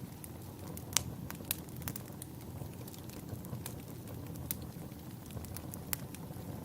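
Wood fire burning in a fireplace: a steady low rumble of flames with scattered sharp crackles and pops from the logs, the loudest pops about a second in and near the end.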